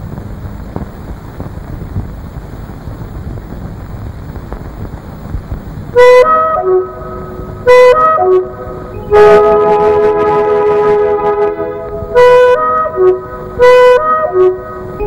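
A steady hiss for about six seconds, then the film's background score comes in: short melodic phrases on a sustained wind-type instrument, repeated several times and joined by held chords.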